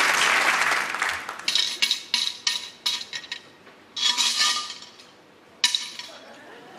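Audience applause fading out over the first second, then a quick run of sharp glass clinks with a ringing tone, and two more clinks spaced about a second and a half apart.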